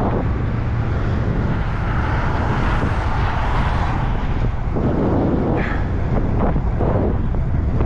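Wind rushing over the microphone of a moving bicycle, mixed with the steady low rumble of a long double-stack container freight train running alongside; the noise swells briefly about five seconds in.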